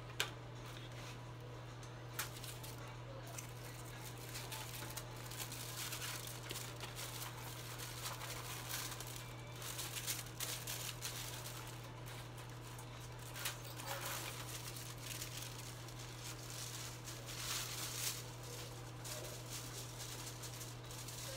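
A steady low hum under faint, intermittent rustling and crinkling, with one sharp click just after the start.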